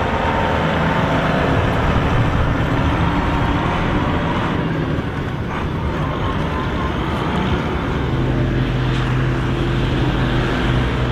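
Mercedes-Benz MB Trac 1000's six-cylinder diesel engine running at close range, its note uneven at first and settling into a steady, even hum about eight seconds in.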